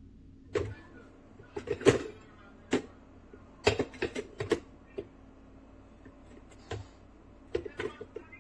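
A series of sharp clicks and knocks in irregular clusters, loudest about two seconds in, over a steady low hum.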